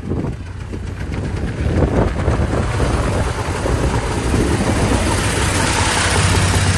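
A truck engine idling steadily, getting louder over the first two seconds.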